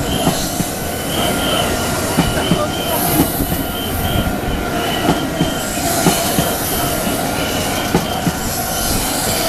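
Meitetsu train passing at close range, its wheels running over the rails with irregular clicks and knocks. A short high tone repeats about twice a second throughout.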